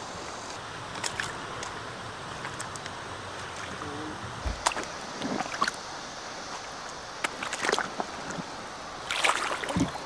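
Shallow river water running steadily, with short splashes and knocks every few seconds.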